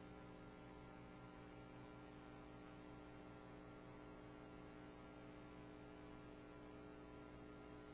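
Near silence: room tone with a faint, steady hum.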